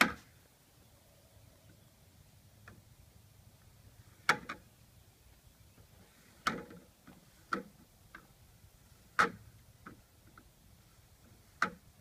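Beads of a playground abacus panel pushed by hand along their rails, clacking against each other and the rail ends: single sharp clacks at irregular gaps of about a second or two.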